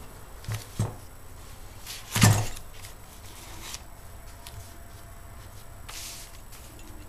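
A metal camping stove handled and set down on a newspaper-covered wooden table. There are two light knocks, then one loud thump about two seconds in, and near the end a short swish of a hand brushing across newspaper.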